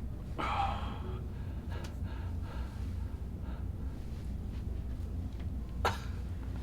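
A man's gasping breath during a Thai massage, a strong exhale about half a second in, then a short sharp breath near the end, over a steady low hum.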